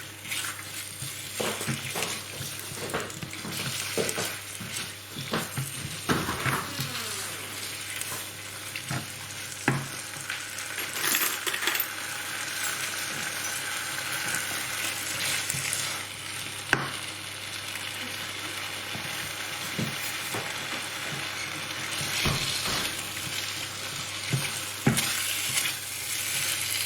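Chicken curry with base gravy sizzling in a pan on an induction hob while a spatula stirs it, with scattered short knocks and scrapes of the spatula against the pan.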